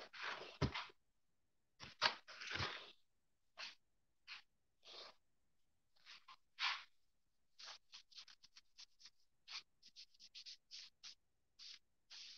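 Handling noise of a phone camera being moved around by hand: faint, irregular rustles and scrapes, a couple with a dull knock in the first few seconds, then a quick run of short scratching sounds in the middle.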